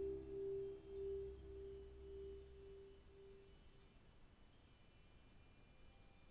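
The fading tail of a music track played through 10GDSh full-range loudspeakers. A low tone pulsing about twice a second dies away, leaving faint shimmering chime-like high notes that stop abruptly at the very end.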